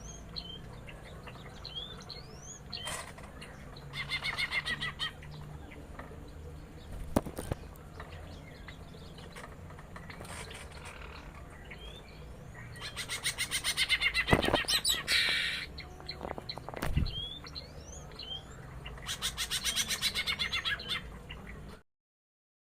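Female and male green leafbirds (cucak ijo) calling back and forth: short rising whistled chirps throughout, with loud bursts of rapid trilled notes about four, thirteen and nineteen seconds in. A few sharp thuds are heard around the middle, and the sound cuts off a second before the end.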